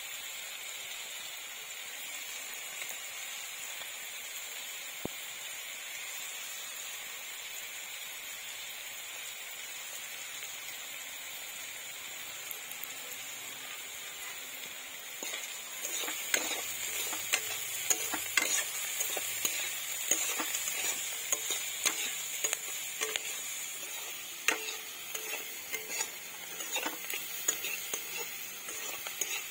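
Chopped onions and green chillies sizzling steadily in hot oil in a metal kadai. About halfway through, a metal spatula starts stirring, scraping and clicking against the pan.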